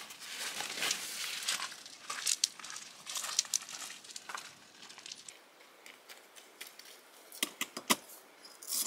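Rustling and crinkling with many scattered clicks and knocks, then quieter, with a quick run of sharp clicks near the end: the handling of tent fabric and gear while pitching camp.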